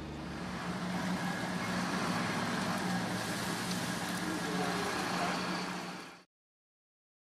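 Fire engine's diesel engine running at the scene, a steady drone with a low hum, fading out about six seconds in.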